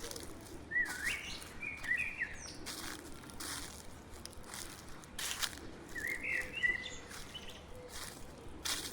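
Slow, steady footsteps crunching through dry fallen leaves on a forest path, about one step a second. A songbird sings two short warbling phrases, one about a second in and another about six seconds in.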